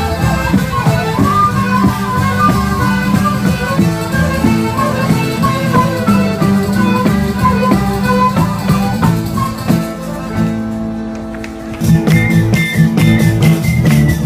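Live southern Italian folk band playing dance music on frame drum, guitar and djembe. About ten seconds in, the drums drop out for a couple of seconds, leaving held notes, then the full band comes back in.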